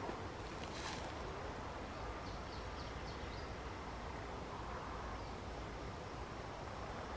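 Outdoor background with a steady low rumble, a short rasping noise about a second in, and a small bird giving a quick run of about six short descending chirps around two to three seconds in.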